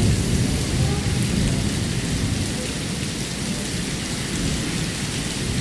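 Typhoon rain falling steadily, with a continuous low rumble underneath.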